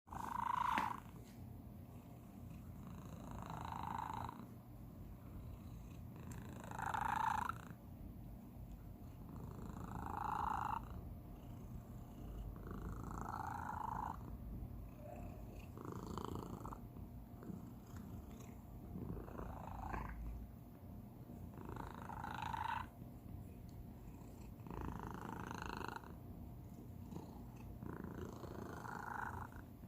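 Domestic cat purring steadily: an unusual purr with a higher tone that sounds out about every three seconds over the low rumble.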